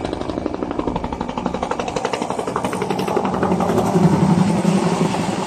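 Helicopter flying low overhead, its rotor beating in a rapid chop that grows louder as it passes over about four seconds in, then begins to fade.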